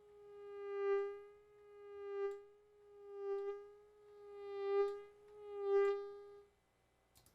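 Synthesized mosquito whine made in Logic Pro X: a steady buzzing tone that swells and fades about five times, like an insect flying close and away again, then stops about a second before the end, followed by a click or two. Its maker finds the buzz still a little too low in pitch.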